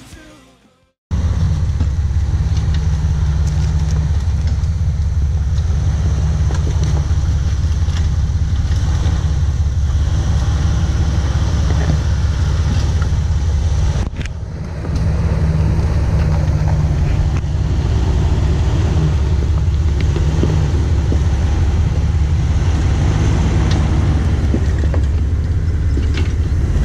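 Jeep running on an off-road trail: a steady low engine and drivetrain rumble that starts abruptly about a second in, with a brief drop about halfway through.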